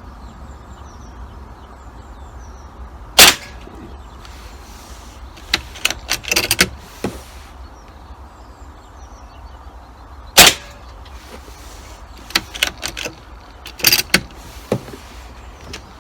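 Beeman air rifle firing two shots about seven seconds apart, each a sharp crack, with a run of smaller mechanical clicks and clatter a couple of seconds after each shot as the rifle is cocked and a pellet loaded.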